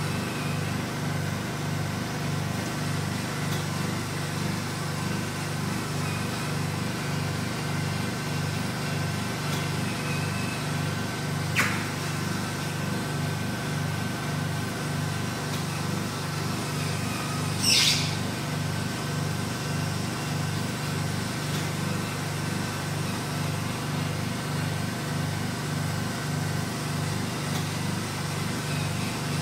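Vacuum RF roller body-contouring machine running with its suction on: a steady motor hum that pulses evenly, about twice a second. Two brief sharp noises cut in, near the middle and about two-thirds of the way through.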